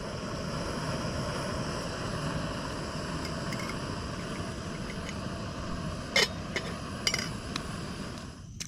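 Camp stove burner running with a steady hiss under a pan of water being brought to the boil. Light metal clinks of the pot come twice, about six and seven seconds in.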